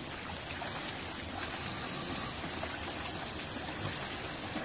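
Steady rush of flowing stream water, running through a narrow rock channel into a woven bamboo basket.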